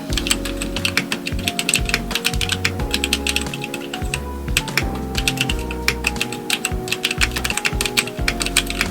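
Typing on a Portico mechanical keyboard fitted with DSA Magic Girl keycaps: a fast, continuous run of keystroke clacks, with a brief lull about four seconds in. Background music with held notes and a bass line plays under the typing.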